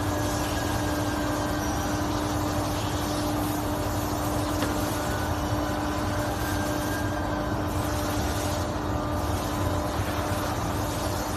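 PVC shoe injection moulding machinery running with a steady drone and a constant hum.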